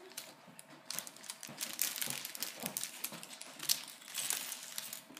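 Plastic packaging crinkling and rustling, with small hard plastic pieces clicking and clattering at irregular moments.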